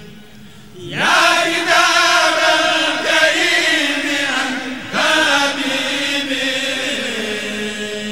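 Chanting of a Mouride khassida, an Arabic devotional poem sung in long melismatic lines. A held note fades away, the chanted verse comes in loudly about a second in, and a new phrase starts about five seconds in.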